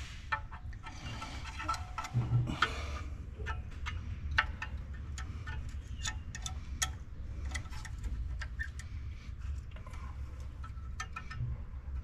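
Scattered light metallic clicks and taps of digital calipers being set against a steel measuring bar bolted across a clutch bell housing, during depth measurements for a hydraulic throwout bearing. A low steady hum runs underneath.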